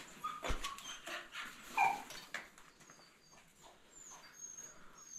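A dog whimpering in a few short, high whines, the loudest about two seconds in, among scattered light clicks and scrapes.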